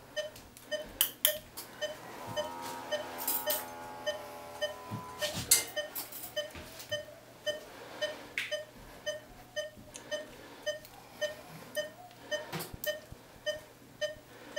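Patient monitor beeping about twice a second, keeping time with the anaesthetised dog's heartbeat. A steady buzzing tone sounds for about three seconds, starting about two seconds in, and surgical instruments click now and then.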